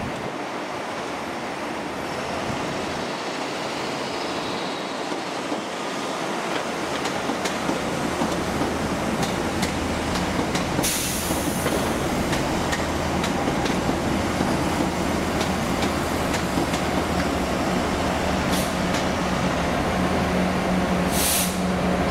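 A train running and growing steadily louder. Its wheels click over rail joints for a few seconds about a third of the way in. Short hisses of air come about halfway through and twice near the end, and a low steady engine drone comes in near the end.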